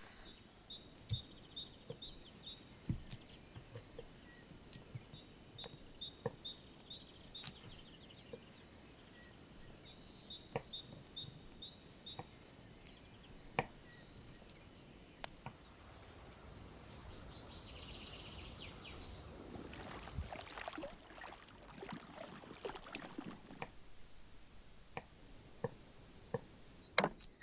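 A small bird sings three short runs of quick repeated high chirps. Scattered light knocks and clicks come from hands working with food and utensils, with a stretch of rustling noise in the second half.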